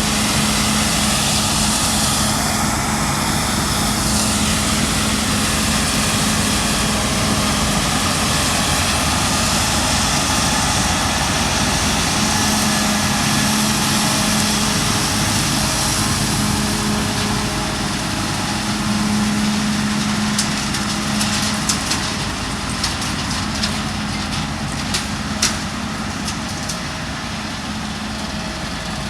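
Claas Lexion 7600 combine harvester running steadily while cutting, with a steady engine hum. A short rise and fall in pitch comes a few seconds in, and scattered sharp clicks come in the last third.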